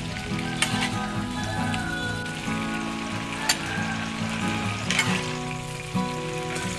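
Water splashing onto fresh red chilies in a metal bowl as they are washed, a steady hiss with a few sharp clicks. Background music with held notes plays under it.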